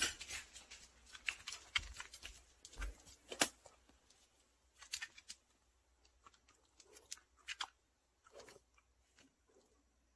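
Dogs moving about on a hard floor: faint, irregular clicks and rustles, denser in the first few seconds.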